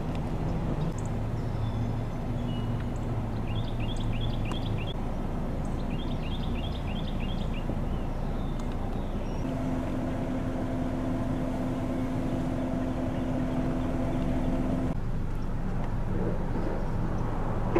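Steady outdoor background of distant road traffic. A bird chirps in two quick series of short notes a few seconds in, and a steady hum runs for about five seconds in the middle before stopping abruptly.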